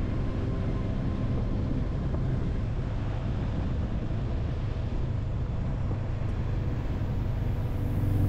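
Steady low engine noise of a moving vehicle, running evenly without change.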